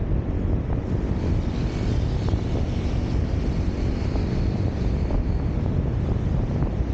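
Car driving on city roads, heard as a steady rumble of wind on the microphone mixed with road and traffic noise.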